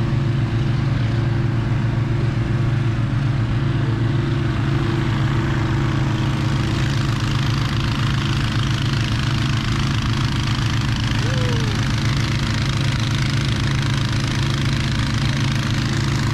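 Petrol-engine inflator fans running steadily, blowing cold air into hot air balloon envelopes lying on the ground: a constant low engine hum under a rushing of air.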